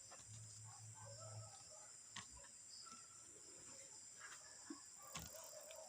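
Near silence: a faint steady high-pitched chirring like crickets, with a couple of small clicks.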